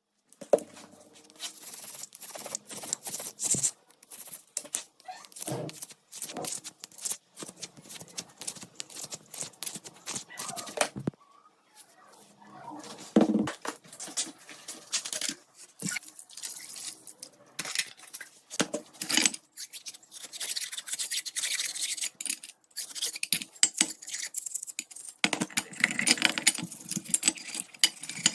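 Brushing and scrubbing on small metal gun parts during rust removal, broken by irregular clicks and taps as the parts are handled. The scrubbing is heaviest about halfway through and again near the end.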